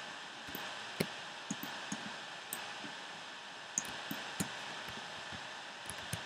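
Scattered sharp clicks of a computer mouse and keyboard, about ten in all, over a steady hiss of microphone noise.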